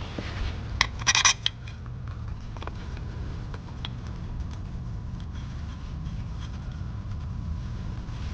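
Bolts and hand tools clinking and clicking as engine parts are fitted by hand: a short bright metallic clink about a second in, then a few faint ticks over a steady low hum.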